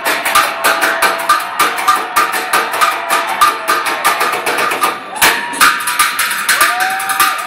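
Drumsticks beating a fast, steady rhythm on a public street trash bin used as a drum, with a short break about five seconds in.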